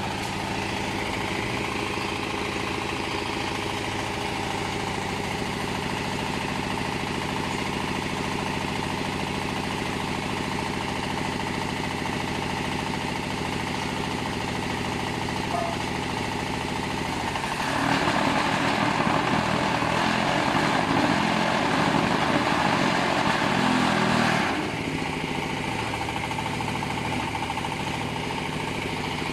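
Single-cylinder diesel engine running steadily, driving the hydraulic press of a concrete hollow block machine. About halfway through, a louder, harsher rattling stretch lasting around seven seconds sets in as the machine works through a block-forming cycle, then drops back to the engine alone.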